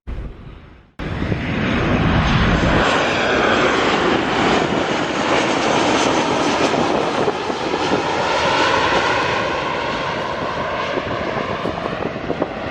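Jet airliner engines running loud and close, cutting in suddenly about a second in and holding a steady roar with whining tones that slide in pitch, easing slightly near the end.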